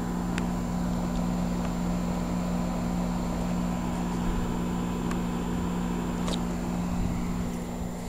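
2010 Janitrol 13 SEER heat pump outdoor unit running in cooling mode, its compressor and condenser fan giving a steady, even hum. The hum eases slightly near the end.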